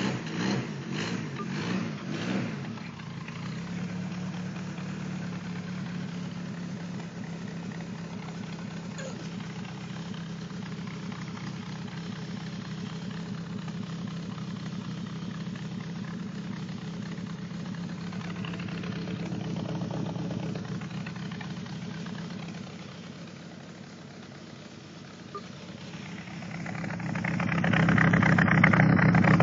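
Volkswagen Parati's engine through a replaced, loud aftermarket exhaust with a strong rumble: a few quick revs, then a steady idle for most of the time, then revved up hard and held near the end.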